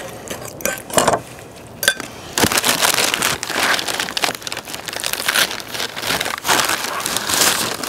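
A few light clicks of a metal spoon against a ceramic bowl. Then, from about two and a half seconds in, sheet paper crinkling as a bread roll is unwrapped from it and torn.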